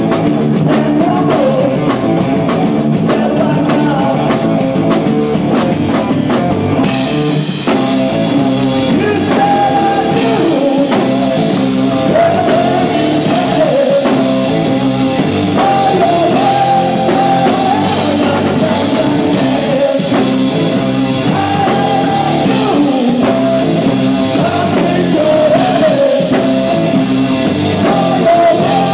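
Live rock band playing loud: electric guitar, bass and drum kit together. A fast, even cymbal beat changes character about seven seconds in as the song moves on.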